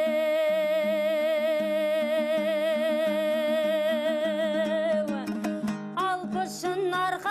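A woman sings one long held note with vibrato over a strummed dombra. About five seconds in, the note falls away and she moves into shorter, ornamented phrases.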